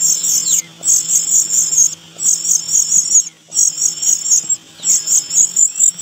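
Cuckoo chick begging for food: high, rapid, trilled calls in bursts of about a second each, five of them with short pauses between, with faint falling whistles in the gaps.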